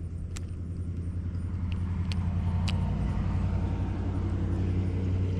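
A motor vehicle's engine running as a steady low rumble that grows gradually louder as it comes closer, with a few short sharp ticks over it.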